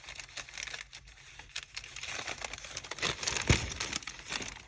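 Sheets of paper being handled, rustling and crinkling irregularly, with a single knock about three and a half seconds in.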